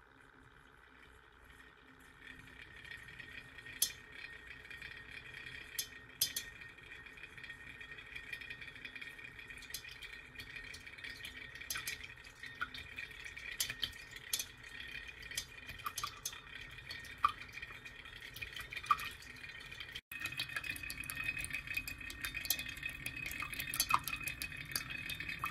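Water swirling in a glass, driven by a magnetic stirrer's spinning egg-shaped stir bar. There is a steady high whir with scattered sharp ticks and splashes, and it grows louder as the vortex deepens. About twenty seconds in there is a brief break, and the sound comes back louder.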